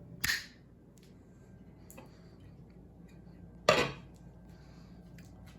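Two sharp clinks of kitchenware, about three and a half seconds apart, each ringing briefly, with a few faint light clicks between them.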